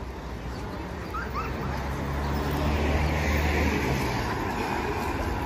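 Road traffic: a vehicle passes on the road alongside, its low engine drone and tyre noise swelling from about two seconds in.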